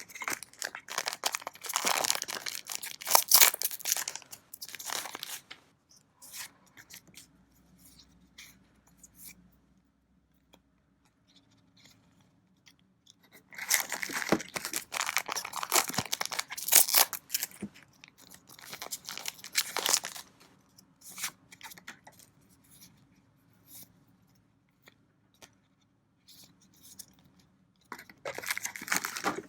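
Trading card booster pack wrappers being torn open and crinkled, in three bouts of crackling noise about ten seconds apart, with faint card handling between.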